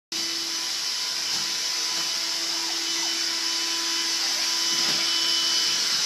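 Small stick vacuum cleaner running steadily: a constant motor hum under a high, even hiss.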